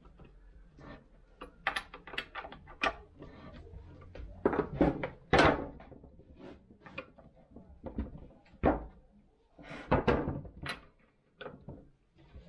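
Clicks, scrapes and knocks of hand-working a Stihl chainsaw on a wooden workbench: the bar nuts being tightened down and a plastic scabbard slipped over the bar, with a few louder knocks about halfway through.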